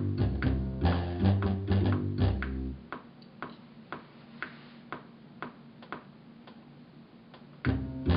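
Music with a bass line and a regular beat. About three seconds in, the bass and most instruments drop out, leaving quieter, sparse ticking percussion, and the full music returns near the end.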